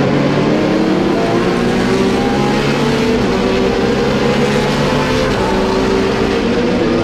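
Dubbed racing-car engine sound: several engines running at high revs together, their pitch drifting up and down a little as they accelerate and lift.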